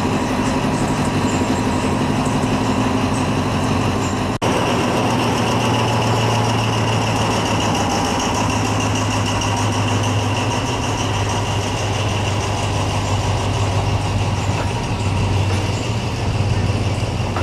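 Thai diesel locomotive's engine idling with a steady low hum. The sound drops out for an instant about four seconds in, then resumes.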